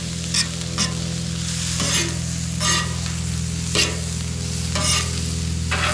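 Diced meat, onions and pickles sizzling on a hot flat-top griddle, with a metal spatula scraping and tapping on the griddle steel several times, over a steady low hum.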